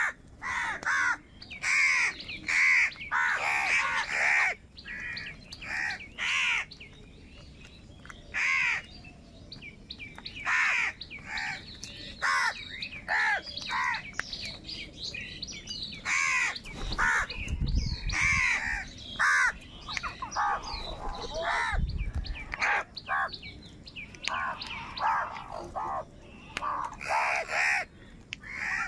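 A flock of house crows cawing while crowding a food bowl: many harsh caws in quick runs, several birds calling at once, with short pauses between bouts.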